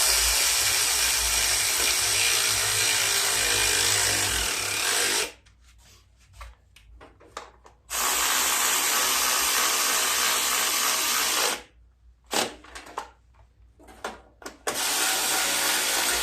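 Handheld power driver running bolts down tight, in three runs of about five, four and two seconds, with small knocks between them.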